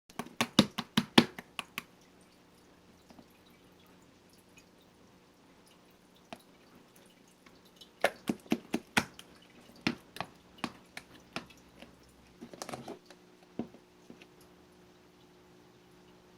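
Marbling slime being pressed and played with by hand, giving runs of crisp, wet clicks and pops: a quick run at the start, a pause, then another run over several seconds, a short squishy rustle and a last click.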